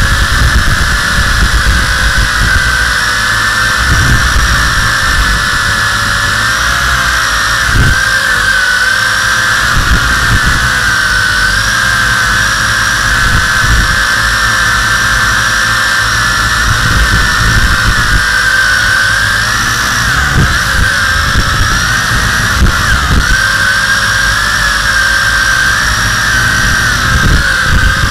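WLToys V262 quadcopter's electric motors and propellers whining in flight, heard from its on-board camera. The pitch wavers up and down as the throttle changes, over a low rumble.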